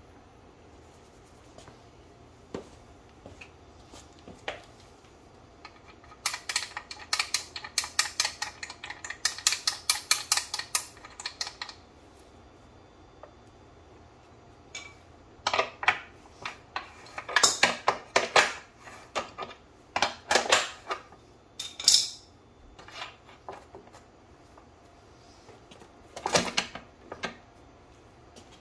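Metal clicking and clinking from hand work on a motorcycle's rear drive chain and chain adjusters while the chain tension is being set: a long run of rapid clicks, then scattered bursts of louder clanks.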